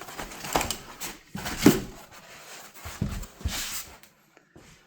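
Cardboard box and packaging scraping and rustling with several knocks, the loudest about a second and a half in, as an electric scooter is worked out of its shipping box. Quieter near the end.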